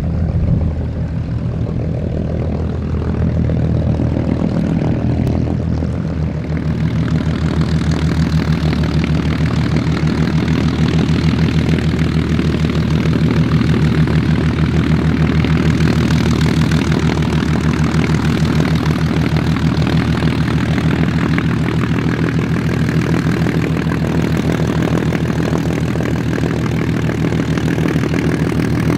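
The 37-litre Rolls-Royce Griffon V12 of a Supermarine Spitfire Mk.XVIIIe running at low power as the fighter taxis. Its steady deep throb grows louder and brighter over the first several seconds as the aircraft draws near, then holds steady.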